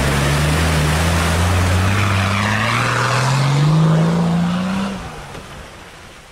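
Off-road SUV engine pulling hard through a river ford, its revs climbing steadily for about five seconds over the rush of water pushed aside by the wheels, then dropping away.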